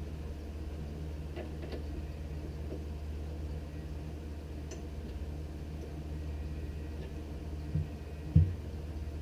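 Cajon pedal hardware being tightened with a drum key: a few faint small metal clicks over a steady low hum, then two dull low thumps near the end, the second louder.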